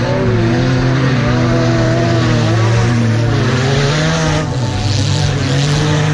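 Engines of old wreck-race cars revving and changing pitch as they drive through deep mud and standing water, with the hiss of spray as they plough through the puddles in the second half.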